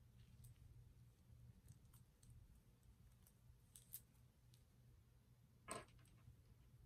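Near silence over a low steady hum, with faint handling noise from cotton cord being wrapped and tied around a tassel: a few soft ticks, and a brief rustling scrape just before the end.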